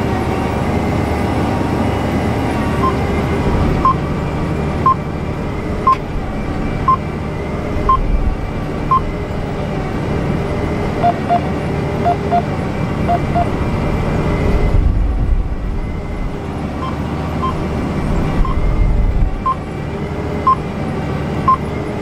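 Instrumental background music with a steady pulse: a short high note repeats about once a second, with pairs of lower notes between, over a dense sustained bed.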